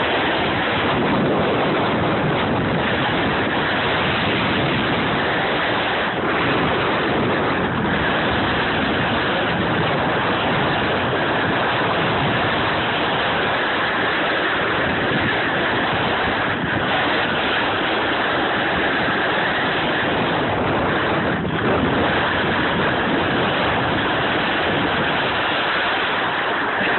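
Steady rushing wind noise on a phone microphone, mixed with the scraping hiss of sliding over packed snow, while riding down a ski slope.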